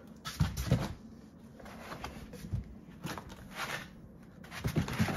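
Foam packing inserts and plastic-bagged accessories being handled in a cardboard box: irregular knocks, scrapes and rustling, with a cluster of knocks near the end.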